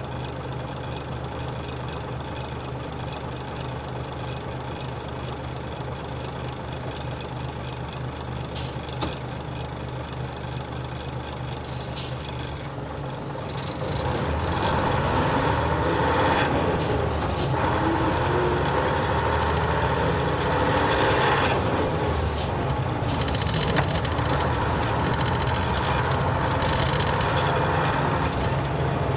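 Nissan Diesel city bus's diesel engine heard from the cabin floor: idling steadily for about fourteen seconds, then growing louder as the bus moves off, its pitch rising and falling several times as it pulls away.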